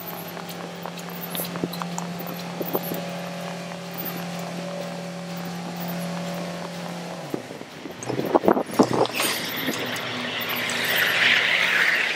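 An engine hums steadily beside the footpath, then drops in pitch and fades about seven seconds in. A burst of loud, irregular rumbling follows about a second later, then a hiss near the end.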